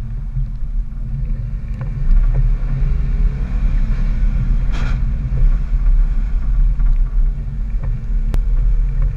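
Dodge Power Wagon pickup's engine running steadily under load while climbing a snow-covered trail, a low rumble that grows louder about two seconds in. A few light knocks and a short rush of noise about five seconds in.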